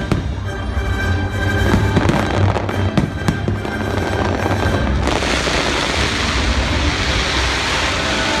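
Aerial fireworks bursting with sharp bangs over show music. About five seconds in, a dense crackling from a mass of crackle stars takes over.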